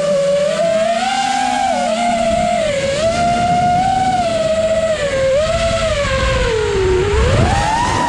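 Brushless motors and propellers of an FPV racing quadcopter whining in flight, the pitch wavering up and down with the throttle. Near the end the whine dips and then climbs sharply as the throttle is pushed up.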